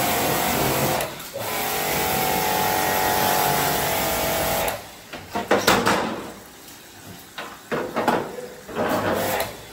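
Small electric pressure washer running, its pump humming under the hiss of the water jet as it sprays the plastic front grille of a split AC, with a short break about a second in. It stops just before five seconds in, and a few knocks and rattles of the plastic panel being handled follow.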